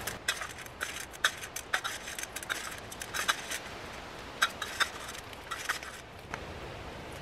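Roasted coffee beans clicking and rattling against a stainless steel bowl and each other as they are scooped into a cloth sock, with a metal spoon scraping the bowl. Irregular sharp clicks, a few a second, thinning out near the end.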